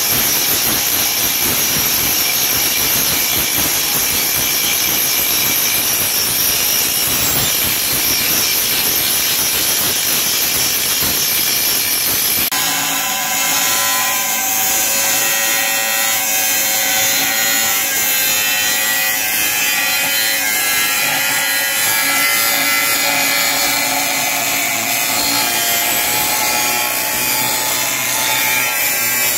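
Handheld angle grinder working stainless steel. First it grinds the corner of a stainless frame with a continuous grinding rasp. About twelve seconds in it switches to cutting through stainless stock with a thin cut-off disc, a steady high whine with several clear tones over the grinding noise.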